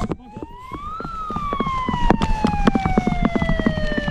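A siren rising in pitch to a peak about a second in, then slowly winding down in pitch, with a rapid run of clicks underneath.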